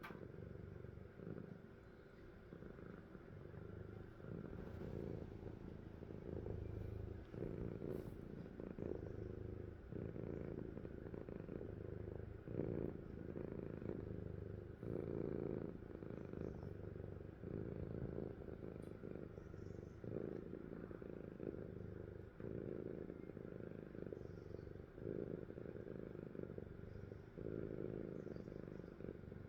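A sleeping cat snoring with a low, purr-like rumble that swells and eases with each breath.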